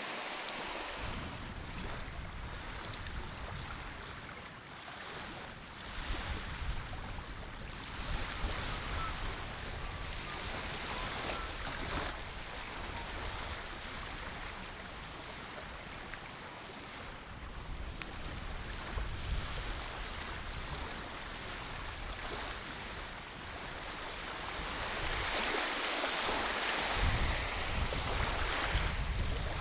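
Wind blowing across a lakeshore with small waves washing in, and gusts buffeting the microphone in low rumbles that come and go, strongest near the end.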